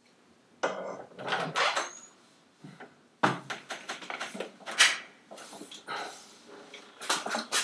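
A door being unlatched and pushed open, with irregular knocks and clattering.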